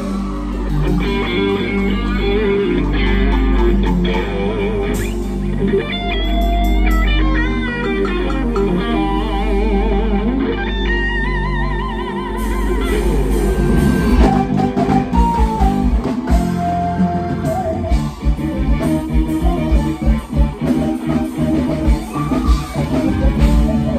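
A band playing live with an electric guitar to the fore, its lead line bending and wavering in pitch over bass, keyboards and drums. About halfway through, the drum beat comes through more strongly.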